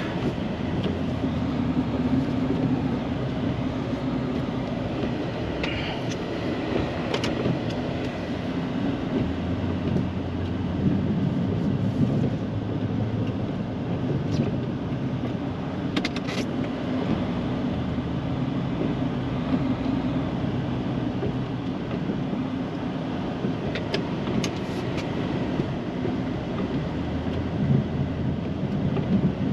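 Pickup plow truck's engine running steadily while plowing snow, its pitch and load shifting every few seconds, with a few short clicks and knocks.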